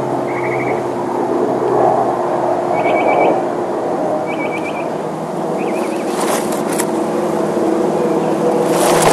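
A steady mechanical drone with a low hum runs throughout, and short trilled bird chirps come several times over it.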